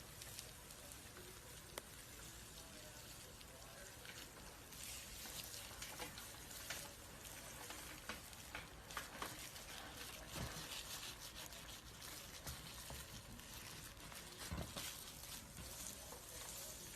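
Faint, dry rustling and crackling of a snake's skin as it sheds, with scattered soft clicks over a steady hiss.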